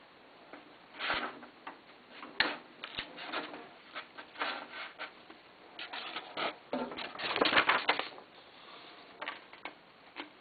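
AB Dick Model 217G spirit duplicator working through copies: irregular mechanical clicks and clatter with paper rustling, busiest and loudest from about six to eight seconds in.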